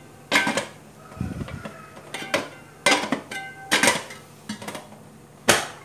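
Aluminium lid clanking against a large aluminium steamer pot as it is set on and shifted into place: about five sharp metallic knocks, some with a brief ring.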